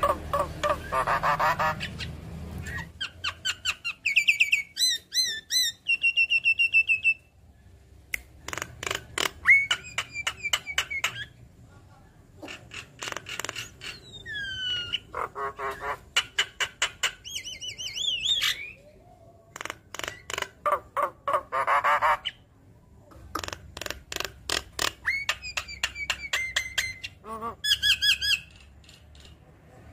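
Javan myna singing a varied, chattering song: phrases of rapid clicking runs, harsh squawks and short whistled notes, some gliding in pitch, with short pauses between phrases.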